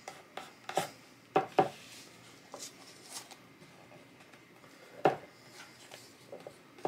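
Hands pressing and rubbing decoupage paper onto a wooden cutout on a worktable, with a scattering of light knocks and taps. The loudest knock comes about five seconds in.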